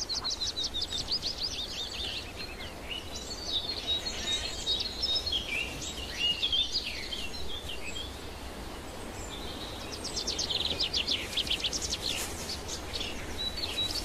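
Songbirds singing: a rapid high trill near the start and again about ten seconds in, with varied chirping phrases in between, over a faint steady background hiss.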